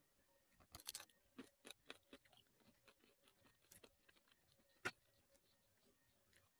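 Faint clicks and crackles of fingers picking up and pulling apart sticky, sugar-glazed fried sweet potato slices on a plate, with a quick run of clicks in the first two seconds and one sharper click about five seconds in.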